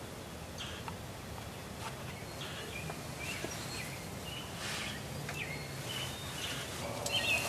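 Wild songbirds giving scattered short chirps over a quiet outdoor background with a faint low hum.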